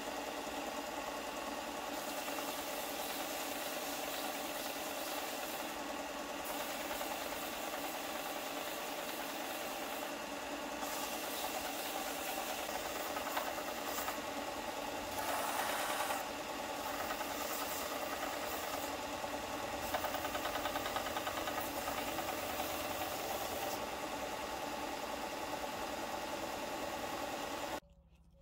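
Bench belt sander running steadily: motor hum with the hiss of the moving sanding belt as a small piece of wood is pressed against it, louder for a moment a little past halfway. The sound cuts off suddenly shortly before the end.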